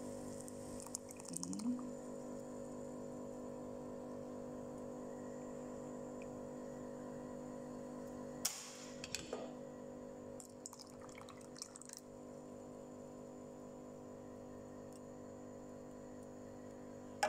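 Canned evaporated milk pouring from the can into a saucepan of simmering tea, with liquid splashing and bubbling, over a steady low hum. A few light clicks and taps come about halfway through.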